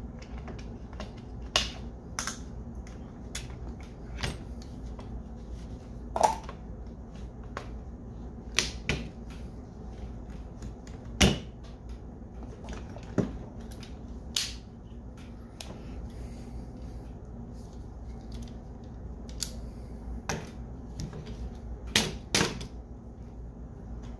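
Irregular sharp clicks and knocks of an AR-15 rifle and its fittings being handled and fitted, about a dozen spread out, over a steady low hum.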